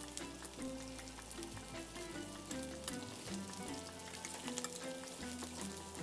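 Oil sizzling with a steady fine crackle as chicken browns in a pan, under soft background music.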